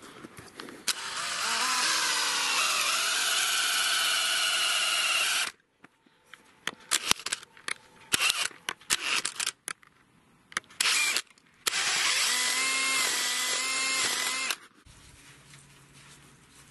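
DeWalt XR cordless drill boring a tap hole into a birch trunk. The motor winds up and runs for about four and a half seconds, then come a few seconds of scattered clicks and knocks, then a second run of about three seconds.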